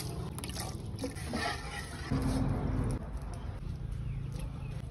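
Cooking oil being poured into a steel wok, splashing and swirling against the pan, with a low steady hum for about a second midway.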